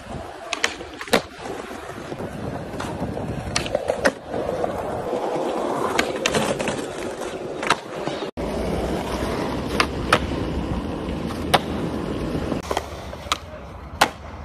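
Skateboard wheels rolling over smooth concrete and stone, with repeated sharp clacks of the board's tail popping and the deck landing. The rolling breaks off briefly about eight seconds in.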